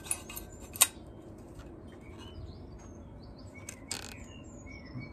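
Sharp metallic clicks from a metal-detecting shovel's adjustable metal shaft being handled, the loudest just under a second in, and a brief rattling scrape about four seconds in. Small birds chirp in the background.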